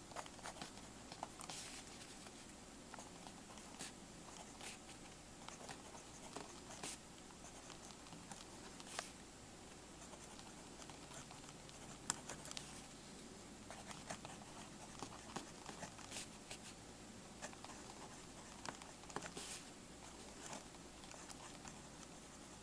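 The 0.5 mm lead of a Uni Jetstream multi-pen's mechanical pencil writing on paper: faint, irregular scratching strokes.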